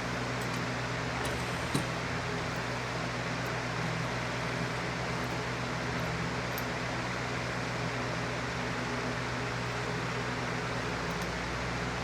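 Steady fan-like hum with an even hiss, and one small click about two seconds in.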